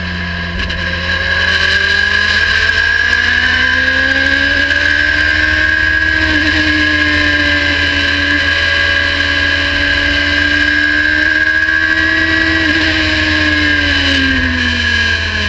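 Radical racing sports car's engine heard from the cockpit at racing speed in third gear. The revs climb out of a corner over the first few seconds, hold high through a fast stretch with a brief dip partway, then fall away near the end as the car slows for the next turn. A steady high whine and a low rumble run over it.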